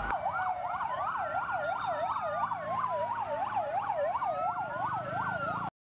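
Fire engine sirens, one in a fast yelp sweeping up and down about three to four times a second over another in a slow rise-and-fall wail; they cut off suddenly near the end.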